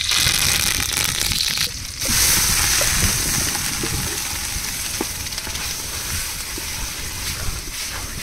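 Hot oil sizzling loudly in an aluminium pot as curry leaves are dropped in, starting suddenly. About two seconds in the hiss surges again as the ground masala paste is poured in and stirred, then slowly dies down.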